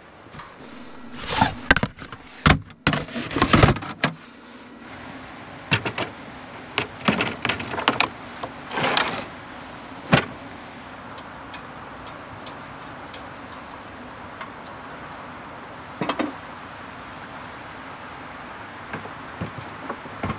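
Camping gear being packed into the back of an SUV: a run of knocks and clatters from storage boxes, lids and a slide-out cargo drawer in the first half, a single knock later on and a few small ones near the end, over a steady rushing background.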